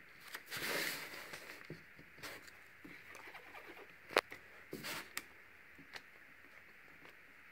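Faint handling sounds of a ceramic tile being turned on the work surface: a scraping slide about half a second in, a sharp click a little after four seconds, a short rustle just before five seconds, and a few small taps in between.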